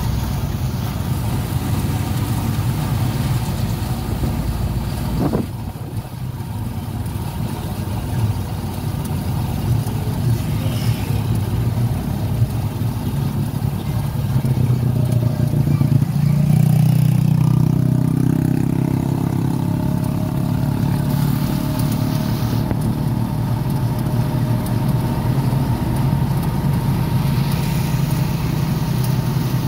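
Motorcycle engine of a becak motor, a motorcycle-sidecar taxi, running on the move, heard from inside the sidecar cab along with road noise. The engine grows louder a little past the middle as it speeds up, then settles back to a steady run.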